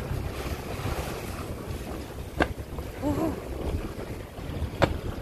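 Wind buffeting the microphone on the deck of a boat at sea, over a steady low rumble. Two sharp clicks come about two and a half seconds apart, and a brief wavering vocal sound falls between them.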